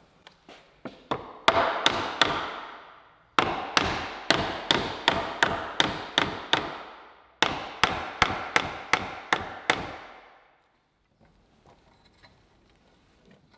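Mallet blows on the end of a glued pine door rail, knocking its tenon down into the stile. The ringing knocks come in three runs of about two a second, then stop about ten seconds in.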